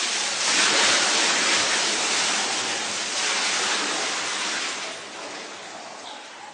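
Salt brine being poured into the brine tank of a hard ice cream machine: a steady splashing pour that starts suddenly, eases off after about five seconds and cuts off abruptly.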